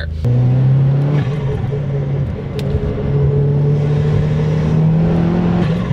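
The big-turbo 1.4-litre turbocharged four-cylinder engine of a Chevy Sonic, heard from inside the cabin while driving, holding a steady drone that creeps slightly up in pitch toward the end, with brief wobbles along the way.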